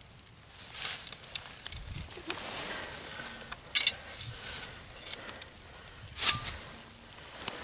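Dry grass rustling and crackling as hands handle and bed a steel leghold trap and its chain into the grass, with a few sharp clicks.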